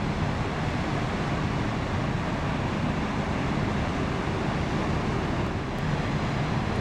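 Steady wind noise on the microphone over a low, even drone of distant engines.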